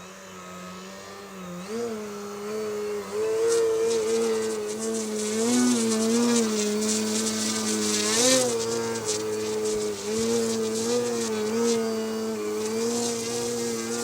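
Electric motor and propeller of an OMP Hobby 60" Edge 540 RC aerobatic plane in flight, a droning buzz that steps up in pitch and loudness about two seconds in, then wavers up and down as the throttle changes.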